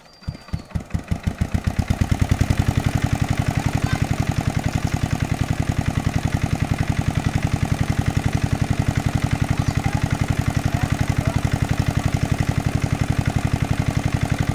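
Small engine-driven water pump starting up and, within about two seconds, settling into a steady, rapid chugging run.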